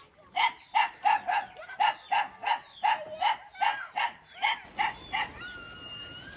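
A dog yapping: about a dozen quick, high barks at roughly three a second. Near the end the barks stop and a steady whistled tone follows.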